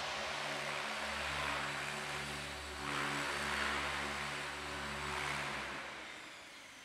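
Electric RC helicopter in flight: steady rotor whoosh over a pitched motor hum, swelling about three seconds in and then fading away near the end.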